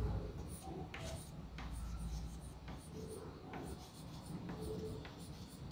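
Chalk writing on a green chalkboard: short, irregular taps and scratches as letters are formed.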